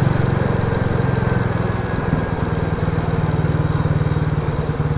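Royal Enfield Classic 350's single-cylinder engine running steadily at low road speed through a Hitchcock's de-cat exhaust pipe, heard from on the bike, easing off slightly about two seconds in.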